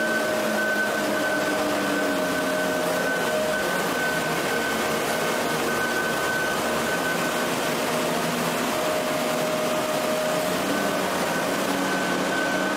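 Steady industrial noise of hydraulic forging machinery, the press and manipulator running as a red-hot steel ring is pressed, with a few steady whining tones that come and go. There are no hammer blows.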